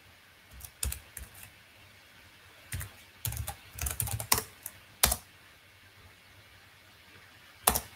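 Typing on a computer keyboard: irregular short runs of keystrokes with pauses between them, and a louder single key click about five seconds in and another near the end.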